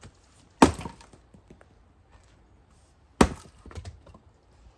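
An axe chopping a round of firewood: two sharp strikes about two and a half seconds apart, the second followed by a few lighter wooden knocks.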